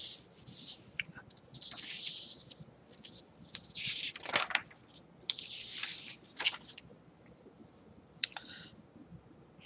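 Sheets of paper rustling and sliding as pages are handled and turned, in about five short scraping swishes.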